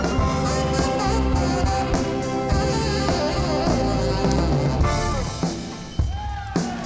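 Rock music with drum kit and guitar, the band thinning out near the end.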